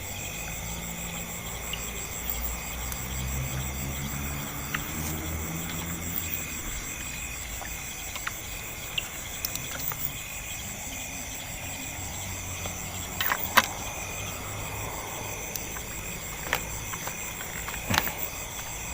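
Steady chorus of crickets or similar insects with an evenly pulsing high trill, over a low rumbling background, broken by a few sharp clicks or knocks, the loudest about two-thirds of the way through.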